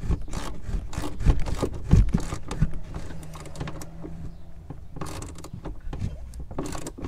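Socket ratchet clicking in short irregular runs, with scrapes and knocks of the tool, as a tail-light retaining nut is run down snug. The clicking is busiest in the first two seconds and comes again about five seconds in.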